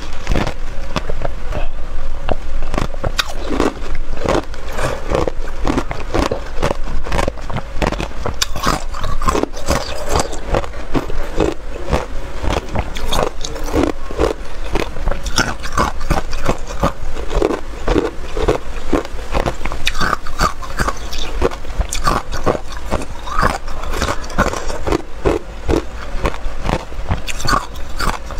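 Hard clear ice being crunched and chewed in the mouth: a dense, unbroken run of sharp cracking crunches.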